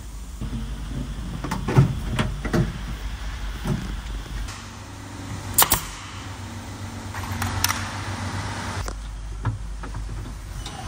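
Work noises from a camper-van fit-out: knocks and clatter of parts being handled, and a pneumatic brad nailer with an air hose firing. It gives a loud sharp double crack about halfway through and another shot a couple of seconds later.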